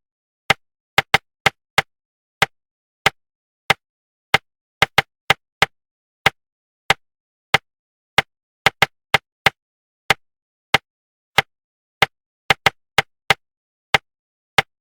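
Sharp single taps in a repeating rhythm: a quick run of four taps about a third of a second apart, then four slower, evenly spaced taps about two-thirds of a second apart, over and over. This is a rhythm-tapping pattern for keeping the inner voice quiet while reading.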